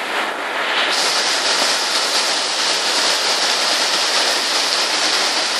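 Heavy rain pouring steadily, mixed with the rushing water of a river in flood.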